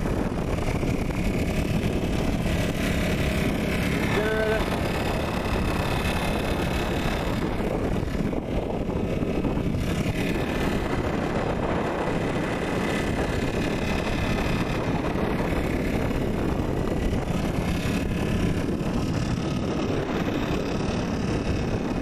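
Strong wind blowing across the microphone over a small portable generator running steadily, at an even level throughout. A brief short tone sounds about four seconds in.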